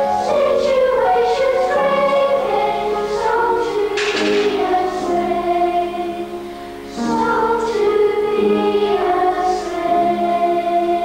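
Children's choir singing a song from a stage musical, holding long notes that move from pitch to pitch; the sound drops briefly about six and a half seconds in, then comes back at full level.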